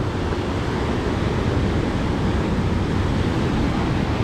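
Steady low rumble of sport-fishing boat engines heading out, mixed with rushing water and wind buffeting the microphone.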